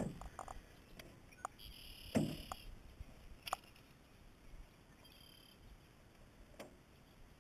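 Mostly quiet: faint clicks and handling noises as a largemouth bass is unhooked and held up in a small jon boat, with one soft thump about two seconds in. Brief faint high tones come twice, about two and five seconds in.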